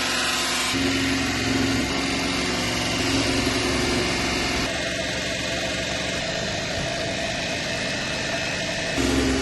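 Electric power tool motor running steadily under light load, the kind used to grind and sand a cleaver blade. The hum changes abruptly a few times, as if between separate clips.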